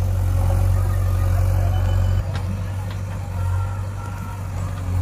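Diesel engines of a JCB 3DX backhoe loader and a John Deere 5045D tractor running steadily while the backhoe loads soil. The engine noise drops and changes abruptly a little over two seconds in, with a couple of faint clicks after.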